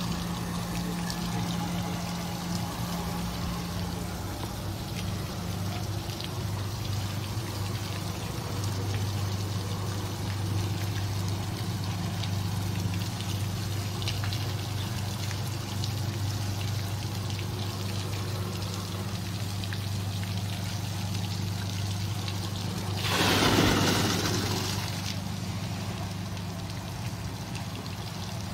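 Water pouring and trickling from the metal buckets of a 1960s kinetic bucket fountain into its basin, over a low steady hum. About 23 seconds in, a louder splash of water lasts about two seconds as a bucket tips and empties.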